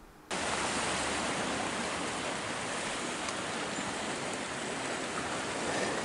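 Steady rushing of ocean surf against the rocks below the sea cliffs, cutting in suddenly just after the start and holding even throughout.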